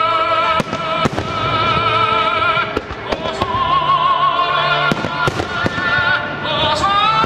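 An operatic singing voice with strong vibrato holding long notes over music, cut through by fireworks bursting: several sharp bangs spread across the seconds, about two of them close together near the start.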